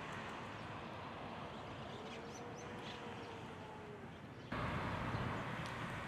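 Outdoor background noise with a low rumble and scattered faint, short high ticks from a flock of Japanese grosbeaks foraging in dry leaf litter. About four and a half seconds in, the background abruptly becomes louder.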